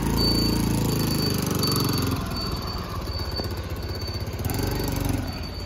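TVS scooter's small single-cylinder petrol engine running as the scooter is ridden slowly, strongest in the first two seconds. A faint high beep repeats a little under twice a second throughout.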